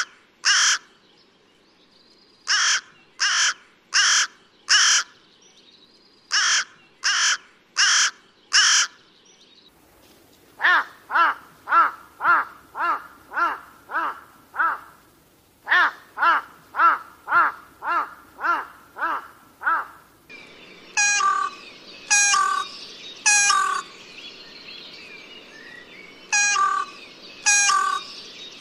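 Carrion crow cawing: coarse, harsh 'ga-ga' calls in bouts of three or four, then a faster run of shorter, lower caws, about two a second, from about 10 s in. From about 20 s in, more spaced caws sound over a steady background hiss.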